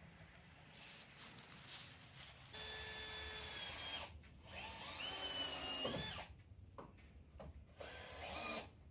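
Cordless drill running in three short runs, driving screws into the wooden post and cross board of a barn frame. The middle run is the longest; its whine rises in pitch and then cuts off.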